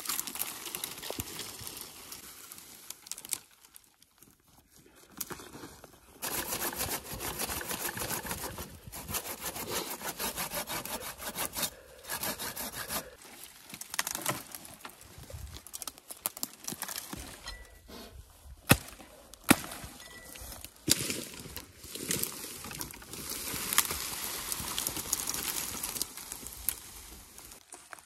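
Dry branches and twigs crackling, snapping and rustling as they are bent, broken off and dragged through brush, with two loud sharp cracks about two-thirds of the way through.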